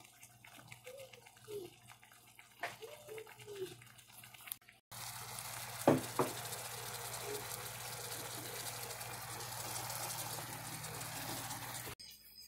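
Chicken breasts cooking in a frying pan of liquid: a steady sizzling hiss that starts abruptly about five seconds in and cuts off suddenly near the end, with two sharp knocks just after it starts.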